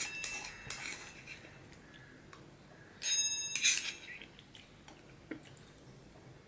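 Steel spoon scraping and clinking against a small metal bowl while scooping up rice pudding. Several clinks near the start and a louder one about three seconds in, each leaving the bowl ringing briefly, then a few faint taps.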